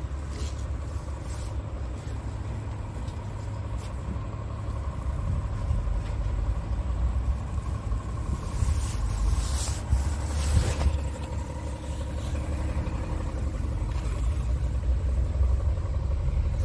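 Scania S tractor unit's diesel engine idling steadily, a low rumble with a faint whine on top. A brief rush of noise and a knock come about two-thirds of the way through.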